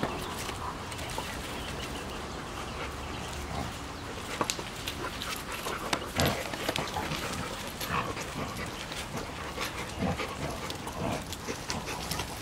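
Two large dogs playing, with short dog vocal sounds and scattered scuffs and clicks.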